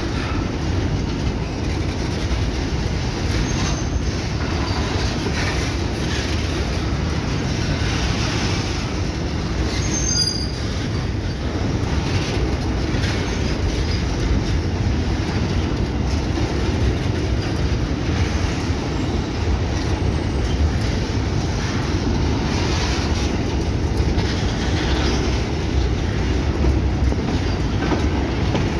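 FEPASA freight train rolling past, its wagons giving a steady heavy rumble with rail clatter and a few brief high wheel squeals, one about 4 s in and one about 10 s in.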